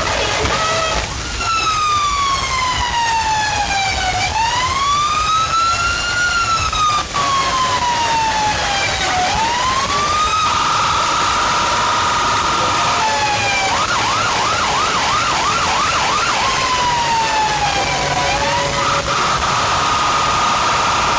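Electronic siren cycling through its tones: slow falling and rising wails, a rapid warbling yelp about two-thirds through, and steady held high tones in between.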